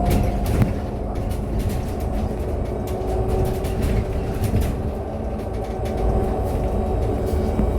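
Inside a MAZ-303E23 electric bus on the move: a steady low road rumble with frequent short rattles and knocks from the body and fittings, and faint steady tones above it.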